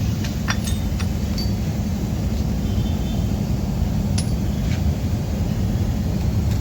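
Steady low mechanical rumble with a few light metallic clinks of metal parts or tools, several in the first second and a half and one about four seconds in.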